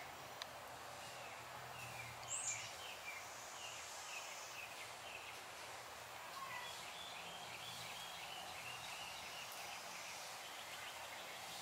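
Steady outdoor background noise with a small bird singing quick runs of short chirping notes, twice.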